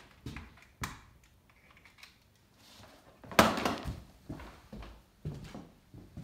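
Footsteps and scattered knocks, with a loud crunching scrape about three and a half seconds in.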